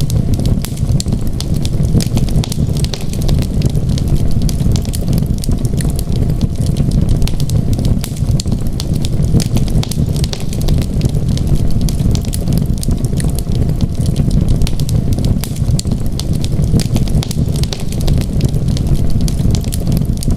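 Wood fire crackling steadily: many small, sharp pops and snaps scattered over a constant low rumble.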